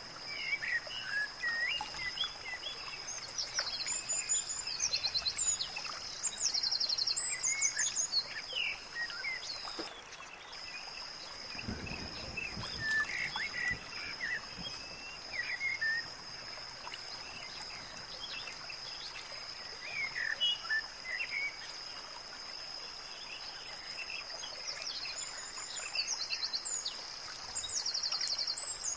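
Birdsong: scattered chirps and trilling calls over a steady high-pitched drone that breaks off briefly about ten seconds in.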